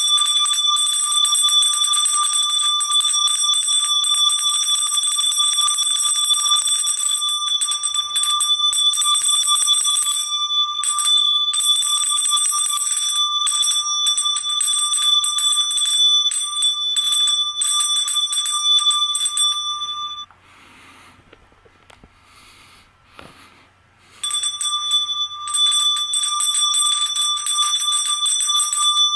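Small metal handbell shaken continuously, its clapper striking many times a second. About twenty seconds in the ringing stops for about four seconds, then starts again.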